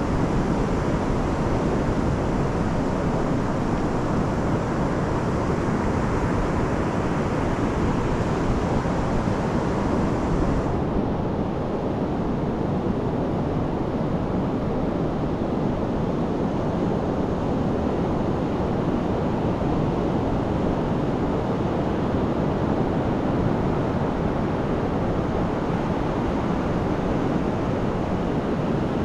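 Pacific surf breaking and washing up a sandy beach in a steady rush of noise, with wind rumbling on the microphone. The higher hiss drops away suddenly about a third of the way through.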